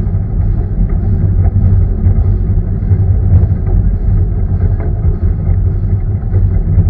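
Running noise of a 1945 Jung narrow-gauge steam locomotive under way, heard up close: a loud, steady low rumble with faint regular ticking about twice a second.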